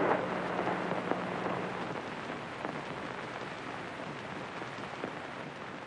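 Electric chair sound effect: a steady electrical hum that stops about two seconds in, under a crackling hiss with scattered sharp clicks that slowly fades away.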